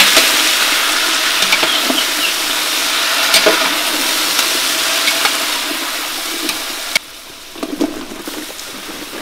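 Potato pieces sizzling in hot oil in a large aluminium pot, with a slotted spoon knocking and scraping against the pot as they are stirred. The sizzle slowly fades and drops off suddenly about seven seconds in, and brinjal pieces then tumble into the pot with a few soft knocks.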